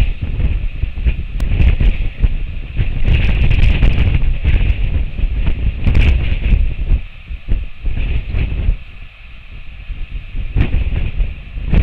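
Strong wind buffeting the microphone in gusts, a heavy rumbling noise that eases in two short lulls in the second half.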